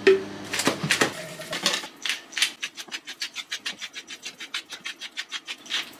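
A wire whisk beating cream sauce in a bowl with fast, even strokes, about six a second, while a wooden pepper mill grinds pepper into it. Before that, in the first two seconds, a few scattered scrapes and splashes as cream is poured into the bowl.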